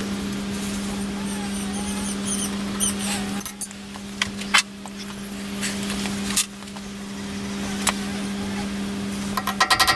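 Steady low electrical hum with scattered sharp clicks and taps from steel tube parts and tools being handled while holes are marked out, ending in a quick run of clicks.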